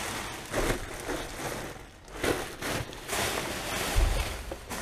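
Plastic rubbish bags and wrappings rustling and crinkling in short bursts as they are pulled about by hand, with a dull thump about four seconds in.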